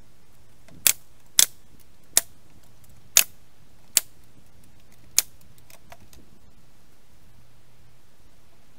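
Pneumatic air nail gun firing six times, driving 3½-inch nails into pallet wood: six sharp bangs at uneven intervals over about four seconds, starting about a second in.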